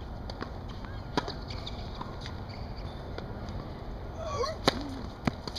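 Tennis serve: a sharp pop of the racket striking the ball about four and a half seconds in, the loudest sound, with a short wavering cry just around the hit. Fainter ball knocks come about a second in and just after the serve.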